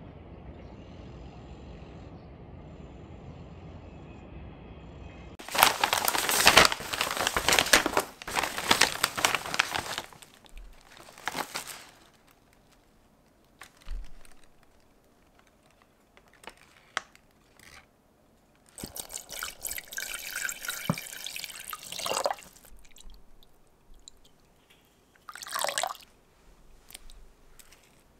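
Water running and pouring in two loud stretches, with short knocks and handling clicks in between; a steady low hum before the first rush.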